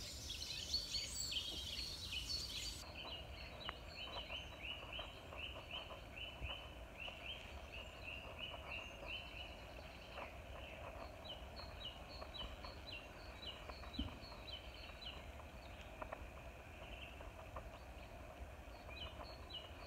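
Wild birds calling in the open, with a long run of short, high, falling notes repeated at about three a second over a low steady rumble.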